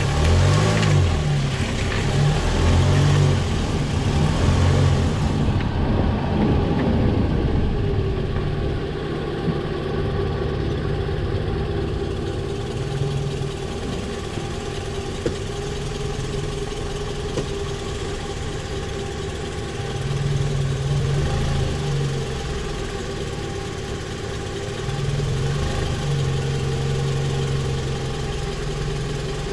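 Toyota Vanguard's 2.4-litre 2AZ-FE four-cylinder petrol engine running, louder and unsteady at first, then settling to an even idle about seven seconds in. A low drone swells up twice later on.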